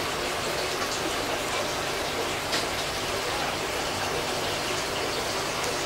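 Aquarium air stones bubbling: a steady, even rush of bubbling water.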